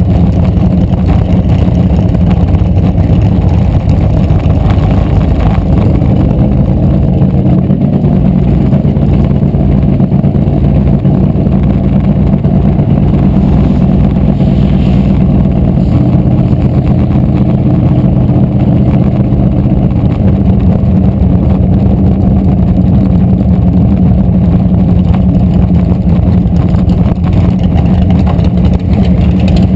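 Drag race car's engine running loudly at low speed as the car rolls slowly, a steady deep drone whose pitch shifts slightly a few times.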